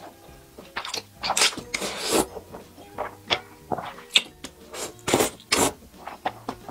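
Close-up eating sounds of a person slurping thick Nanchang mixed rice noodles, several loud slurps with wet chewing clicks between them, over faint background music.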